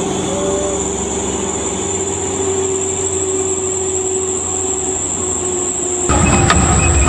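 Steady vehicle-like rumble with a held, steady tone, growing louder and heavier about six seconds in.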